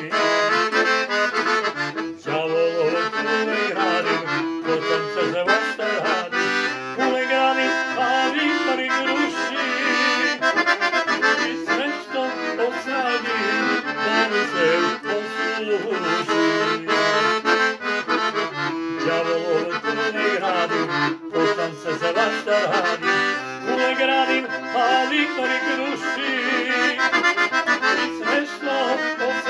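Hohner piano accordion playing a tune without pause, several notes sounding at once.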